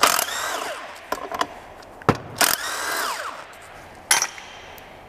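Cordless driver with a 10 mm socket spinning out the ignition coil bolts on a Honda GX160 engine. Two short runs, each winding down in pitch, and then a sharp click near the end.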